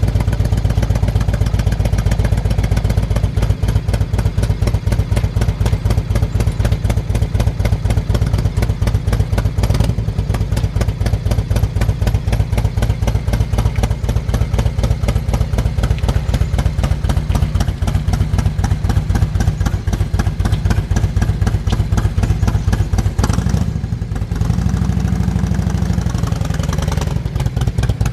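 Harley-Davidson touring motorcycle's V-twin engine idling with a steady, even beat. About two-thirds of the way through, the note rises and strengthens as the bike pulls away.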